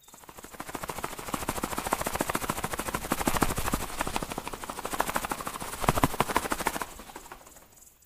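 Cartoon sound effect of a small bird's wings fluttering in flight: a rapid, even flapping that swells in over the first couple of seconds and fades out near the end.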